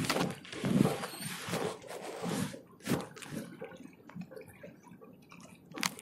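Water splashing and dripping with a few knocks, then quieter small handling and drip sounds.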